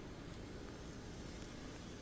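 Faint steady room noise with no distinct event.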